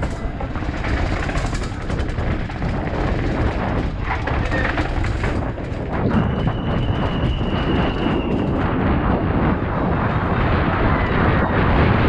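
Downhill mountain bike rattling and clattering at speed over stairs, cobblestones and ridged concrete, with many sharp knocks from impacts and wind rushing on a helmet-mounted microphone. A held high tone sounds for about two seconds just past the middle.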